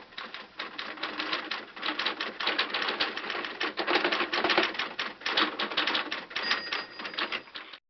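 Typewriter keys clacking in quick, uneven runs of strikes, with a faint ringing tone joining about six and a half seconds in; the typing cuts off suddenly near the end.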